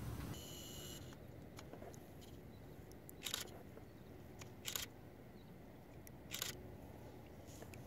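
Three short, sharp clicks about a second and a half apart over a faint steady hiss, just after a brief high tone.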